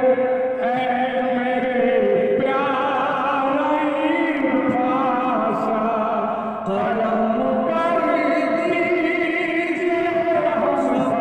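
A man singing a slow, drawn-out devotional chant-like melody in praise of a Sufi saint, with long held, ornamented notes; the track is slowed down and drenched in added reverb.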